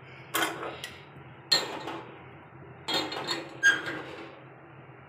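Metal pot tongs clanking against the rim of a stainless steel pot as it is gripped on the stove. Several sharp metallic knocks with a brief ring come over about four seconds; the loudest is near the end.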